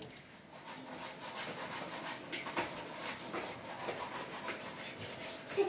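Dishes being scrubbed by hand at a kitchen sink: a run of short, irregular rubbing and scraping strokes.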